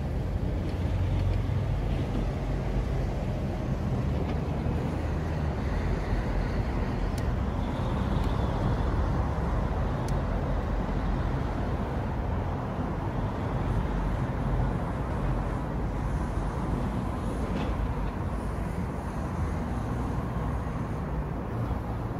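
Steady low rumble of road traffic, unbroken and even throughout.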